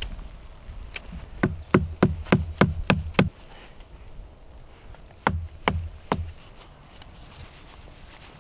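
Sharp wooden knocks as a knife blade is struck into a stick resting on a log, cutting an X-shaped notch for a carved hook. A single knock, then a quick run of about eight at roughly four a second, then three more a couple of seconds later.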